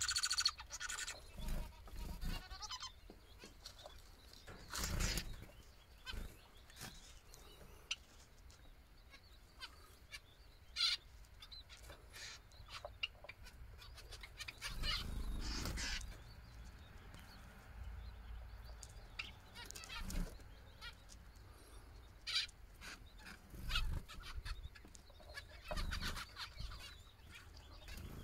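Aviary birds calling now and then in short chirps, with occasional brief rustling sounds.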